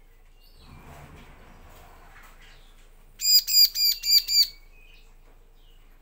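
A bar-winged prinia (ciblek) calls a quick run of about five loud, sharp, ringing notes lasting just over a second, about three seconds in. It is preceded by a soft fluttering rustle.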